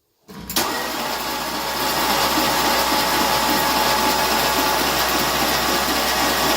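Starter motor cranking a Chevy 350 small-block V8, turning it over steadily with an even rhythm but not firing: no fuel pump is fitted yet. It starts abruptly just after the beginning.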